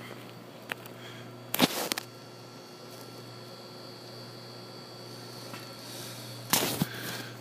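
Steady low hum of a large building's interior, with two short noisy bursts: one about a second and a half in, and one near the end.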